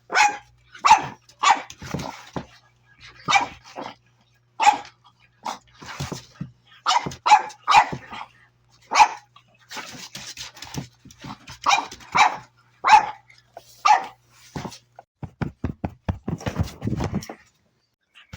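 Young pug puppies yapping: short, high-pitched barks in quick, irregular succession, with a low rattling growl about three quarters of the way through.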